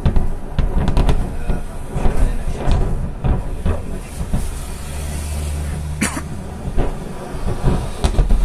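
Distant explosions of a burning munitions depot: repeated low booms and a continuous heavy rumble, with a steady low hum for about a second midway.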